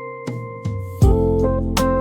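Lofi instrumental music: keyboard chords with light drum hits, growing fuller and louder about a second in.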